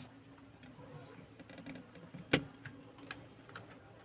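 Scattered small clicks and taps of hand tools working an amplifier IC loose from a circuit board, with one sharper click about two and a half seconds in.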